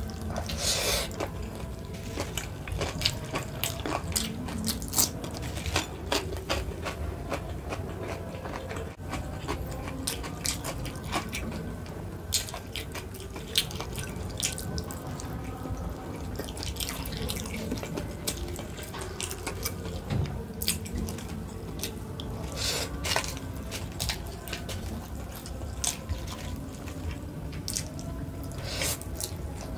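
Close-miked mouth sounds of someone eating a rice meal: wet chewing and smacking with many short clicks, and now and then a louder, sharper bite.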